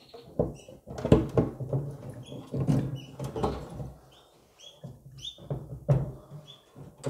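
Black wire cage front rattling and knocking against the cage's aluminium frame as it is fitted back into place: a series of irregular metallic clatters.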